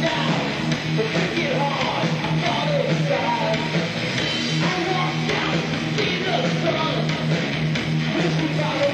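A rock band playing live: electric guitars and bass over a drum kit, the band playing steadily without a break.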